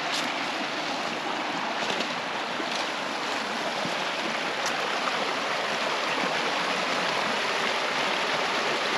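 Shallow rocky creek running steadily, with water pouring over a small ledge between boulders in a continuous rushing splash.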